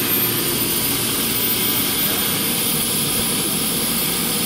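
Nilfisk Advance ES400XLP self-contained carpet extractor running, its vacuum motor giving a steady drone with a thin high whine as the floor tool is pushed over carpet, extracting cleaning solution.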